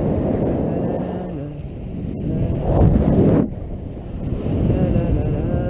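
Wind rushing over the microphone in flight, a low buffeting rumble that swells into a strong gust about two and a half seconds in and drops off abruptly a second later.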